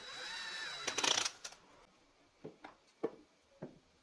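Cordless drill/driver running as it drives a screw into a wooden jig, its motor whine ending with a brief clatter about a second and a half in. Then several light, separate knocks of wooden pieces being handled on the bench.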